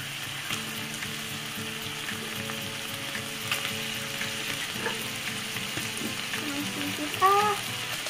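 Thin-sliced beef simmering in soy sauce and sugar in a frying pan, sizzling steadily with scattered small crackles as the sauce cooks down. A brief pitched note stands out about seven seconds in.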